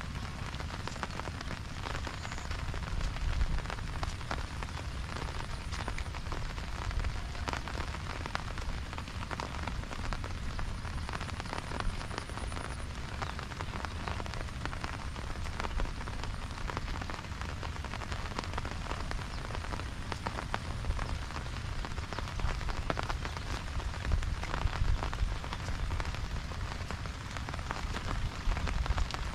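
Steady rain falling, with many individual drops ticking on surfaces and a low rumble underneath.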